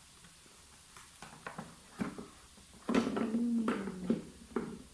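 Light clicks and rustles of a cardboard box and packaging being opened by hand, then, about three seconds in, a drawn-out vocal sound held on one pitch for under a second, with a shorter one just after.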